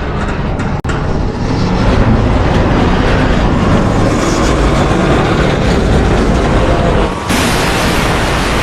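Sound effect of a large ship sinking: a loud, dense rumble that carries on throughout. It breaks off for a moment about a second in and changes abruptly near the end.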